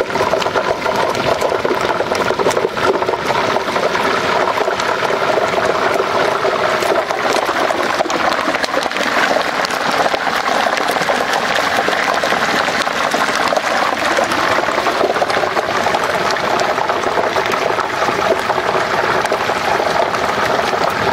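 Hot oil in a turkey fryer pot bubbling and sizzling hard as a whole turkey is lowered slowly into it, a loud, steady seething.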